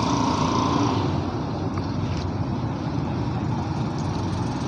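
Steady street noise of road traffic, with vehicle engines running.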